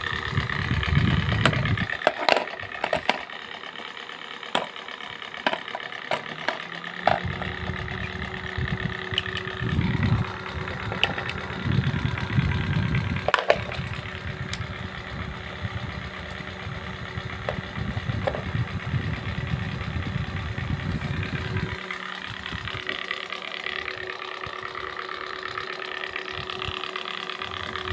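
Many electric fans running together: a steady motor hum with several whining tones over it. Irregular low rumbles of moving air buffet the microphone, and scattered clicks sound throughout.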